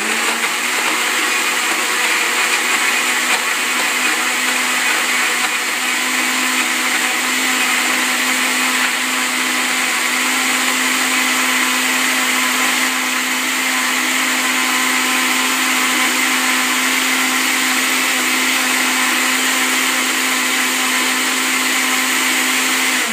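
Countertop blender running loud and steady, blending baby carrots, almond milk and soy ice cream into a shake: a continuous whir with a steady low hum under it, cutting off suddenly near the end.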